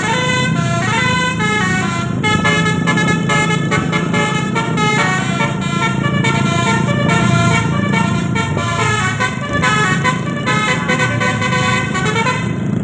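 Bus basuri musical horn playing a quick stepping melody, with an engine running underneath. The horn cuts off near the end.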